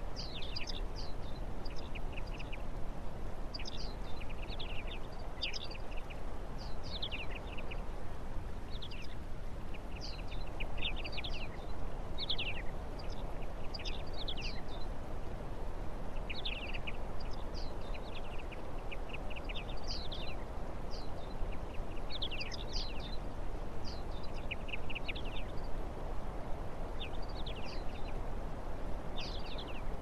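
Small songbirds chirping, with many short falling notes coming in quick clusters every second or two, over a steady low background noise.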